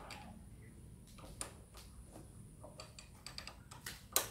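Light metallic clicks and ticks of a 5 mm Allen key working the bolts of a motorcycle's upper triple clamp as they are undone, coming unevenly with a quick run of clicks after the middle and a sharper click near the end.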